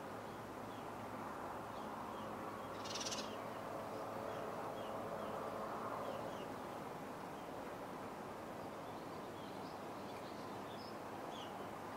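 Steady outdoor background noise with scattered faint bird chirps throughout and one louder, brief rasping bird call about three seconds in.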